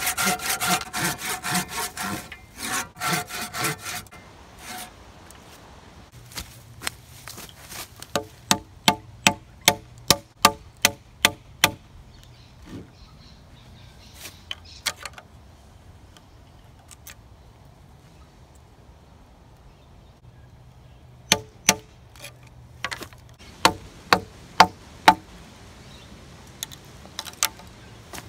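Hand saw cutting with quick back-and-forth strokes for the first few seconds, then two runs of sharp knocks on wood, each with a short ringing tone.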